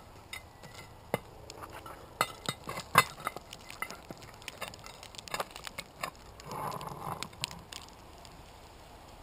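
Metal lid lifter clinking against the briquette-covered lid of a cast iron Dutch oven as it is hooked and lifted: a string of sharp metallic clinks, the loudest about three seconds in, with a short scrape about seven seconds in.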